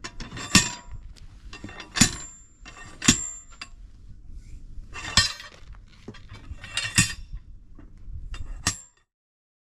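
Six sharp metal-on-metal blows with a ringing clink, spaced a second or two apart: a tool being struck to break the bead of a truck tyre off its rim.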